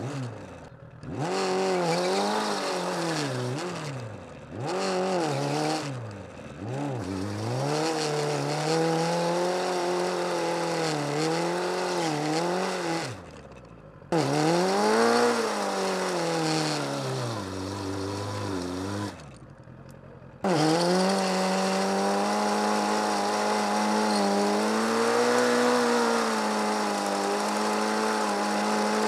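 Suzuki GSX750F inline-four engine revving hard during a burnout, its pitch swinging up and down with the throttle while the rear tyre spins and smokes. The sound drops away briefly several times, and from about two-thirds through it holds one long, steady high rev.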